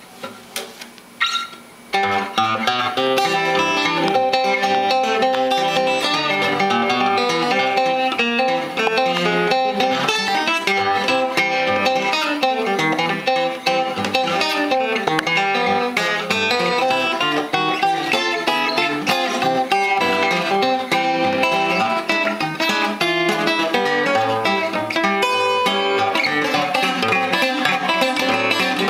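A few knocks as the guitar is handled, then, about two seconds in, an 1890s Ditson Empire parlor guitar, spruce top with laminated rosewood back and sides, is played fingerstyle in a continuous run of plucked notes and chords.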